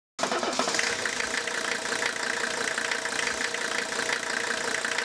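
A 1989 Chevy K1500 pickup's engine idling steadily. It cuts in suddenly a moment in.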